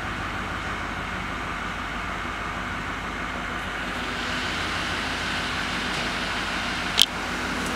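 A 6.6 L L5P Duramax V8 turbodiesel idling steadily, heard from inside the cab. A single sharp click comes about seven seconds in.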